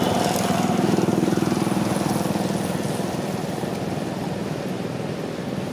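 An engine running steadily with a low hum, slowly getting fainter.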